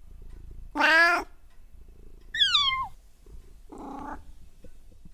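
A cat meowing three times, the second call higher and falling in pitch.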